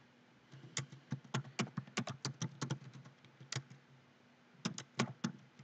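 Typing on a computer keyboard: a quick run of keystrokes, a pause of about a second, then another short run of keystrokes near the end.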